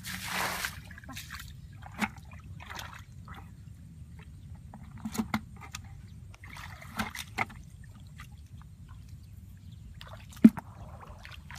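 Muddy ditch water sloshing and splashing as it is bailed with a plastic bucket: a splash as a bucketful is thrown out at the start, then scattered sloshes and small knocks, with a sharp knock near the end.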